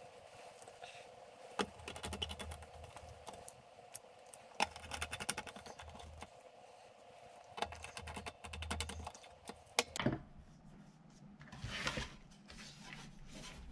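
Small screws being driven into a sheet-metal PC power supply case with a hand screwdriver: irregular light clicking and scraping, with a few sharper knocks as the metal case and the screwdriver are handled.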